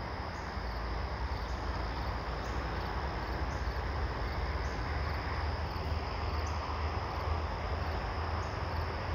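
Crickets trilling steadily in a late-summer evening park, over a low, steady rumble.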